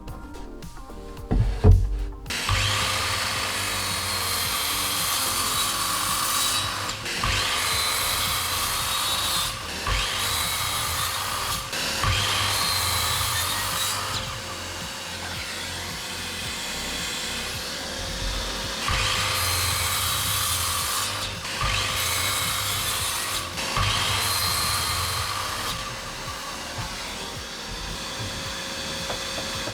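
An electric power tool starts about two seconds in and works wood in a series of passes lasting a few seconds each, its motor holding one steady pitch throughout.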